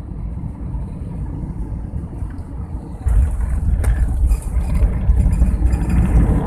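Airbus A320-family airliner landing, heard from inside the cabin: a steady low rumble on final approach, then touchdown about three seconds in, after which the noise jumps louder into the rumble and rattle of the wheels rolling down the runway.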